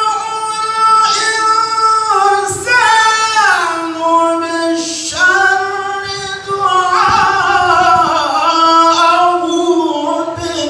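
A man reciting the Quran in the melodic tilawah style, in high, long-held phrases with wavering ornaments, pausing briefly twice between phrases.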